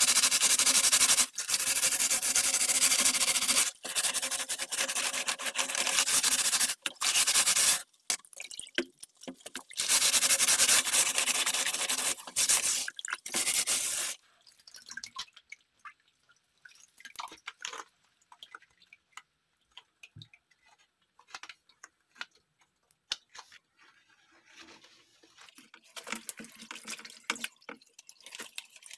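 Water running from a tap in several bursts for about the first half, broken by short gaps. After that come quieter scattered drips and small clicks.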